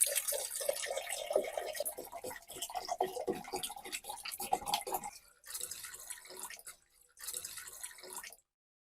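Water splashing and dripping in quick, irregular splashes, then two shorter patches of water noise before it cuts off abruptly near the end.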